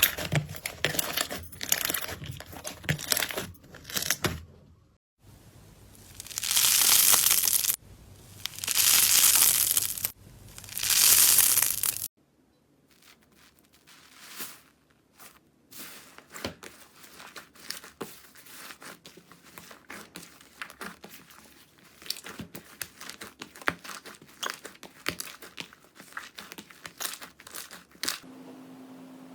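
Slime being handled: fast crackling clicks and pops, then three long noisy swells of about a second and a half each as it is stretched and pulled apart, then sparser, quieter crackles and clicks.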